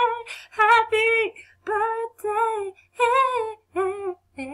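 A woman singing alone without accompaniment: a string of short held notes with a wavering pitch, dropping lower near the end.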